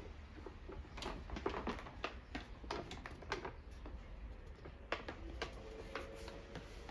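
Irregular light clicks and taps, a few a second, over a low steady hum in a small room.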